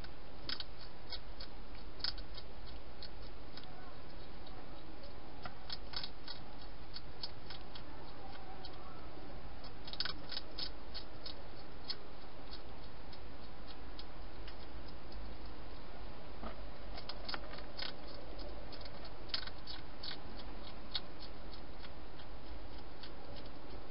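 European hedgehog eating, crunching food in bursts of quick sharp clicks with pauses between, inside a plastic feeding box. A steady low hum and hiss runs underneath.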